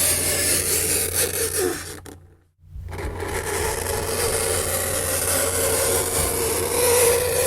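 Fingernails scraping across a chalkboard: a harsh grating scrape with a wavering squeal. It dies away about two seconds in and starts again within a second.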